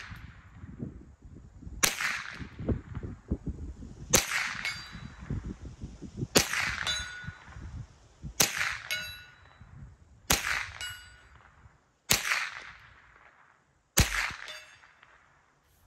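Winchester Wildcat .22LR semi-automatic rifle firing seven unhurried shots, about two seconds apart, at steel plates. Several shots are followed a moment later by the faint ring of a bullet striking the steel.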